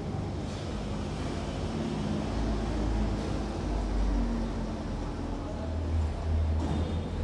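Steady low engine rumble: the Royal Enfield Standard 350's single-cylinder engine idling.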